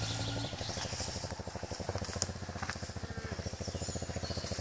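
A motorcycle engine running with an even, fast low pulse, after a brief revving note that breaks off about half a second in. A couple of sharp clicks come around two seconds in.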